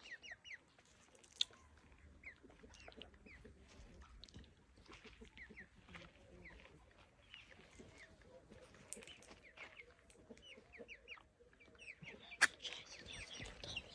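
Faint bird chirping: many short, quickly falling peeps repeated all the way through, with a soft wavering low note in the middle stretch. A single sharp click comes near the end.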